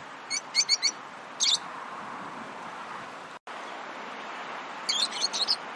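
Lovebirds chirping in short, high calls: a quick run of chirps near the start, another about a second and a half in, and a second run near the end, over a steady background hiss.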